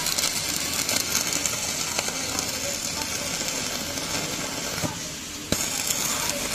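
Stick (MMA) arc welding with an EDON MMA-250S inverter welder burning a thick 8-gauge electrode: the arc's steady crackling hiss. About five seconds in it dips briefly, then comes back with a sharp crack.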